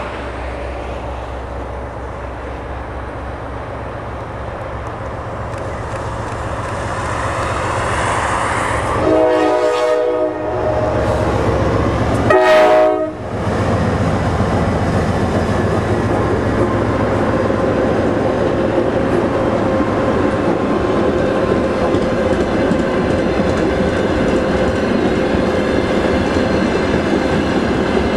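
GE TE33A diesel locomotive approaching at the head of a freight train, its engine getting louder. About nine seconds in, a locomotive horn sounds twice, a longer blast and then a shorter, louder one. From then on there is the steady rolling noise of a second diesel locomotive and a long line of tank-car wheels running past on the rails.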